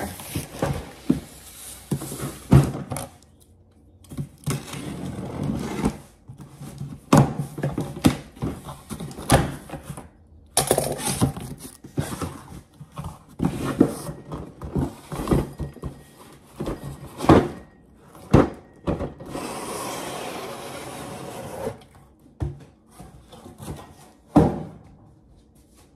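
Plastic mailer bag crinkling and being torn open, then a plastic drawer organizer handled with repeated knocks and thunks.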